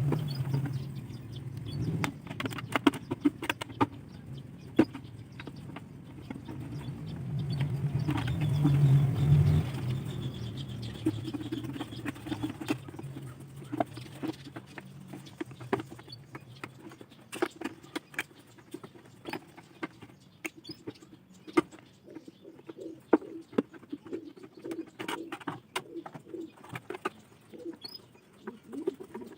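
Pigeons cooing, with many sharp clicks and taps scattered throughout.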